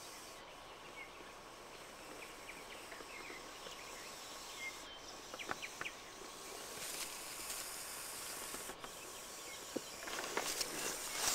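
Faint rustling of dry leaves and grass, with the defensive hisses of a black common adder (Vipera berus) warning off an intruder. The rustling grows louder near the end.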